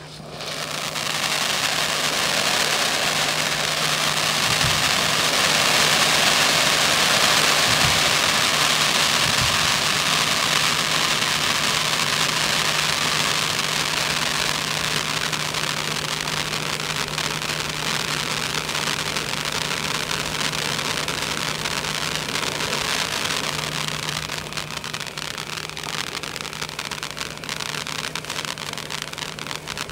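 Three handheld ice cream cone fountain fireworks spraying sparks with a loud, steady hiss, which thins in the last few seconds as the fountains burn out and only one is left. A steady low hum runs underneath.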